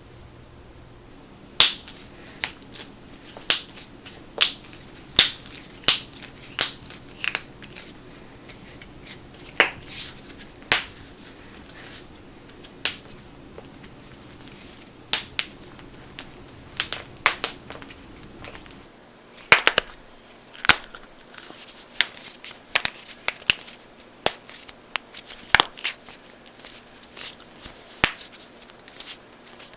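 Knuckles cracking: a long, irregular run of sharp pops, some single and some in quick clusters, coming thicker in the last third.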